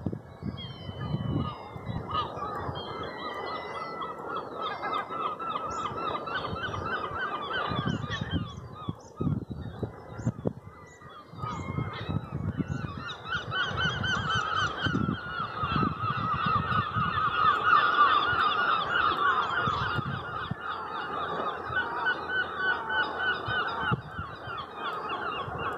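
Many seabirds calling together in a dense, continuous chatter of overlapping calls, quieter for a moment around nine seconds in and louder from about twelve seconds on. Low gusts of wind buffet the microphone underneath.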